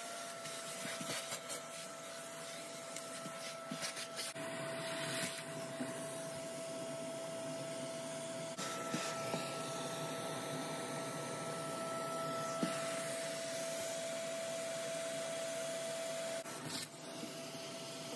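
Vacuum running steadily with a constant whine, its flat crevice nozzle sucking dust and debris out of gaps between foam insulation boards. Small clicks of debris come early on, and the rush of air changes a few times as the nozzle is moved and pressed into the gaps.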